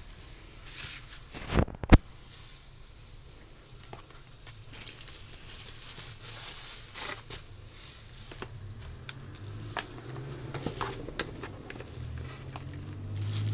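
Hands rummaging through a cardboard box of packed accessories: plastic bags and bubble wrap crinkling and cardboard rustling, with scattered small clicks. Two sharp knocks come close together a little under two seconds in, the loudest sounds.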